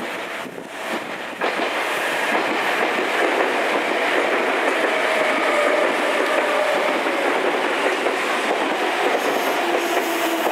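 Meitetsu stainless-steel commuter train pulling into the platform, its wheels clacking over the rail joints. The sound swells sharply about a second and a half in and stays loud, with a faint whine in it from midway as the train slows.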